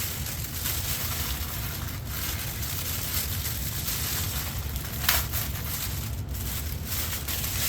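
Packaging being handled: continuous crinkling and rustling of wrapping and paper while the box contents are sorted through, with a sharper crinkle about five seconds in.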